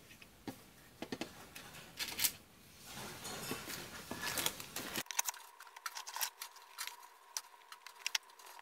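Hands handling paper die-cuts and a clear plastic storage case: light paper rustling with scattered small clicks and taps. About five seconds in the background changes and a faint steady hum sets in under the continuing taps.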